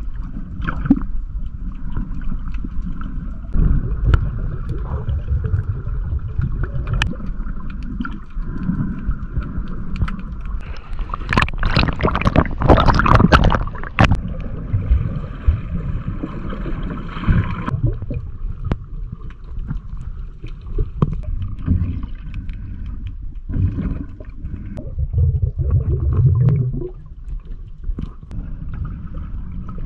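Water rumbling and sloshing around an underwater camera, heard through the water, with a louder splashing surge about halfway through as the camera breaks the surface. A faint steady hum runs underneath and stops a little past halfway.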